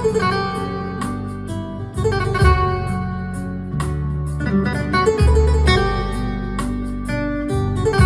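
Background music: plucked guitar over bass notes with a steady beat.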